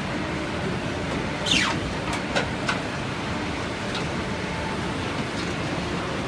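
Steady rushing noise of an automatic paper loader and guillotine cutter line running, with a quick falling hiss about a second and a half in and a few sharp clicks just after it as the loader's gantry head moves over the paper stack.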